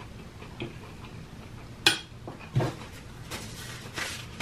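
Metal fork clicking sharply once against a dish about two seconds in, with softer clicks and rustling from eating and from a paper napkin.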